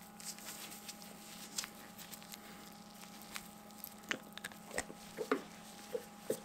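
Faint handling noises of gloved hands holding a squirming piglet on a towel: scattered small clicks and rustles, more frequent in the second half, over a faint steady hum.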